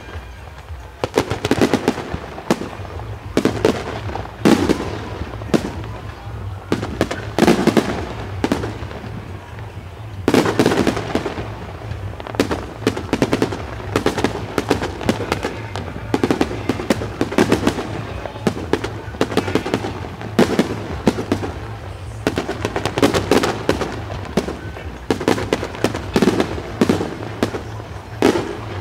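Aerial fireworks display: shells bursting one after another, each followed by a dense spray of crackling, with a steady low rumble underneath.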